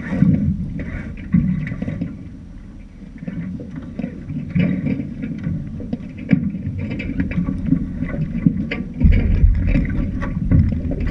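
Small boat on the water: gusty wind rumbling on the microphone, with water splashing and knocking against the hull, heavier for the last couple of seconds.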